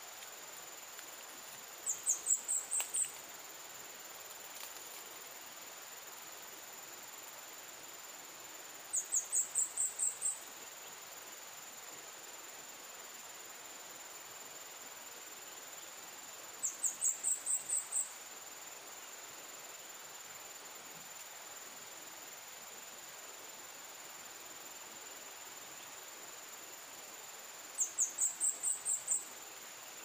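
A recorded bird call used as a trapping lure: a quick run of about seven high, slightly rising chirps, heard four times, each run nearly identical, over a steady high insect buzz.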